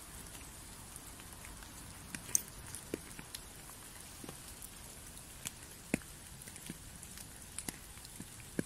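Water drops falling at irregular intervals onto wet fallen leaves, as soft ticks over a steady faint hiss. The loudest drop lands a little over two seconds in.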